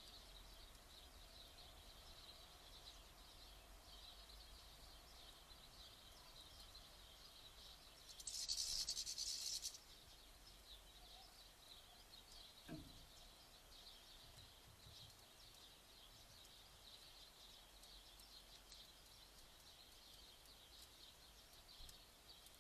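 Faint outdoor ambience at a garden bird feeder: soft, high-pitched twittering of small birds in the background. About eight seconds in comes a louder hissing rustle lasting about a second and a half.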